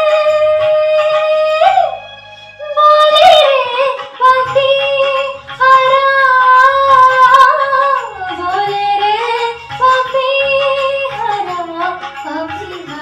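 A young woman singing solo, with long held notes ornamented by slides and turns. There is a brief breath break about two seconds in, and the melody moves lower from about eight seconds in.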